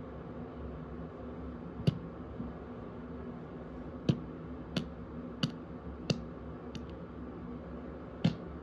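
Seven short, sharp clicks over a steady low hum, the middle five coming evenly, about two-thirds of a second apart.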